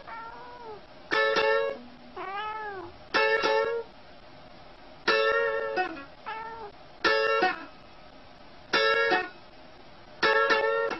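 Guitar chords struck about every two seconds, each ringing briefly. In some of the gaps a cat gives short meows that rise and then fall in pitch, about three of them.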